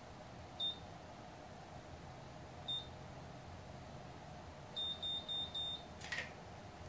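VS Sassoon Curl Secret automatic curler beeping while it curls a section of hair: single short high beeps about every two seconds, then four quick beeps near the end that signal the curl is done and ready to release. A brief noise follows as the curl is let out.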